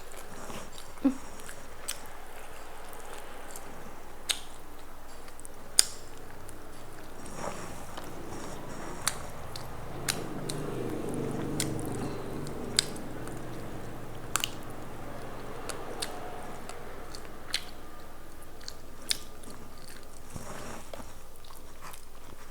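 A person biting and chewing food close to the microphone, with scattered sharp clicks.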